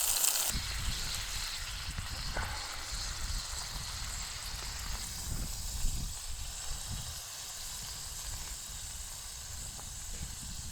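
Burger patty frying in a pan with a steady sizzle, louder for about the first half second and then softer.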